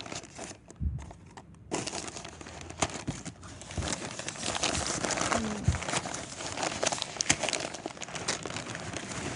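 Plant packaging crinkling and crumpling as it is pulled open by hand. The handling is sparse at first, then becomes continuous from about two seconds in.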